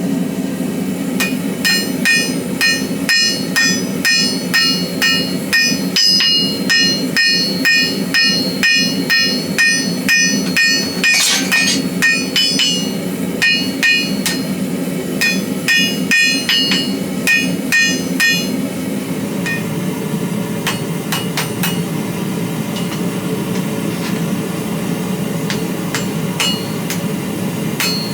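Hand hammer forging hot steel on an anvil: steady blows about two a second, each with a ringing metallic tone, with a short break near the middle, stopping about two-thirds of the way through. A steady roar runs underneath throughout.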